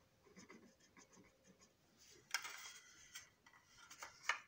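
Faint scratchy strokes of a colouring tool being drawn over the plastic side of a toy train box car, with a louder stroke a little past halfway and a sharp one near the end.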